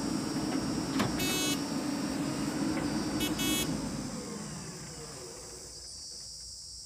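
Diesel engine of a JCB 3DX backhoe loader running steadily while it digs, fading away after about four seconds. A short horn-like beep sounds twice, about a second in and again about three seconds in.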